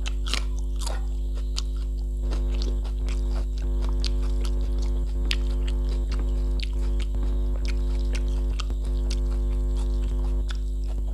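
Chewing and biting sounds of a person eating rice and curry by hand: a bite into a raw green chilli near the start, then many short wet clicks and crunches of chewing and fingers working the rice. A steady electrical mains hum runs underneath.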